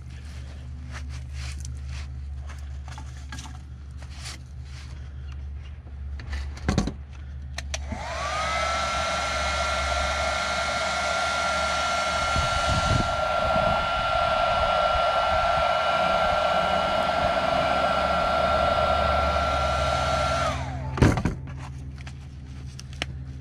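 Heat gun switched on about eight seconds in: its fan spins up to a steady whine with a rush of air, runs for about twelve seconds, then is switched off and winds down. Scattered clicks and knocks of handling come before it, with a sharp knock just before it starts and another just after it stops.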